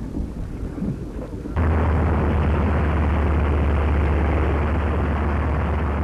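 Old newsreel soundtrack noise: a low crackling rumble, then about a second and a half in an abrupt jump to a louder, steady rumble with a strong low hum, as at a splice in the film.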